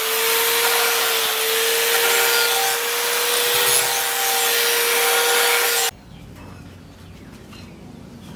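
Electric power tool, a grinder or sander, running with a steady motor whine under a loud abrasive hiss as it works the knife or its handle; it stops abruptly about six seconds in.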